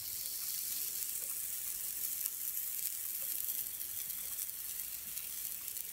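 Waffle batter sizzling as it is poured and spooned onto the hot plate of an electric waffle iron: a steady hiss.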